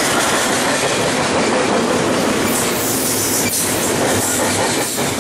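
Double-stack intermodal freight train's well cars rolling past close by: a loud, steady rumble and rattle of steel wheels on rail, with a brief high-pitched hiss about halfway through.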